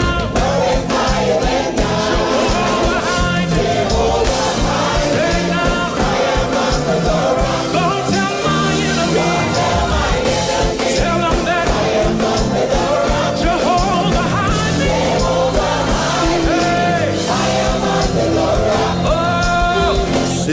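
Live gospel band of keyboard, organ, bass, drums and guitar playing an upbeat Caribbean-style chorus while a lead singer and choir sing over it.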